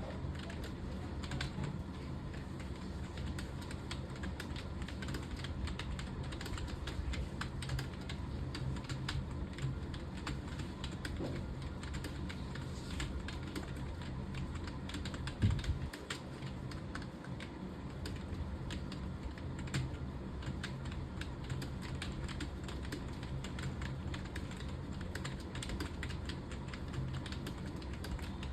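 Continuous fast typing on a computer keyboard, keys clicking rapidly without pause, over a steady low hum. A single louder thump comes about halfway through.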